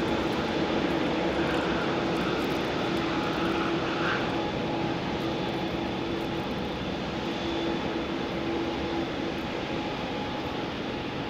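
Boeing 787-8's turbofan engines running steadily at low power as the airliner rolls out slowly after landing: a constant hum and rush with a steady tone. It grows gradually quieter as the aircraft moves away.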